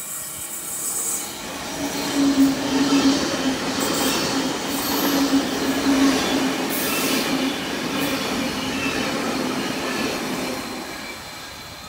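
Sydney Trains K set double-deck electric train passing at speed through the station without stopping: wheels rumbling and clacking over the rails with a steady hum, building over the first couple of seconds, loudest as the carriages go by, then fading near the end.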